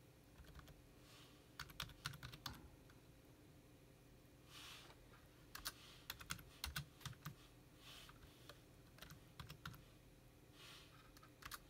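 Faint keystrokes on a computer keyboard: someone typing a few words, in short irregular clusters of clicks with pauses between.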